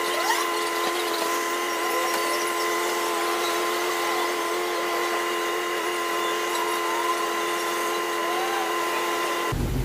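Gas pump dispensing fuel into a car's tank: a steady whine of several tones with fuel rushing through the nozzle, stopping suddenly near the end as the fill ends.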